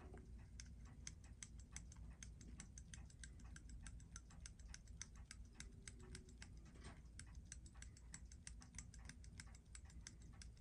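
Faint, quick run of small clicks, about five a second, from the crown of a Seiko 6619 automatic watch being turned by hand to run the hands forward through a full 24 hours so the day and date change over.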